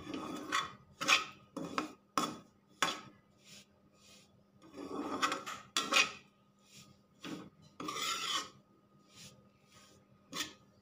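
Metal spatula scraping and stirring ground coriander in ghee around a metal kadhai, in about a dozen irregular strokes, some short and some drawn out. The coriander is being roasted on a low flame.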